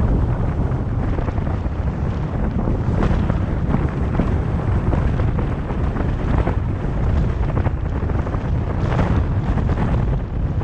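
Wind buffeting the microphone of a camera on a moving car, a steady low rumble that flutters, mixed with road noise from the car driving at city speed.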